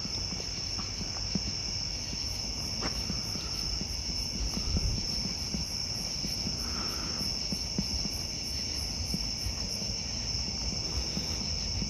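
Night insects such as crickets calling together: a steady high trill with a faster, evenly pulsing chirp above it.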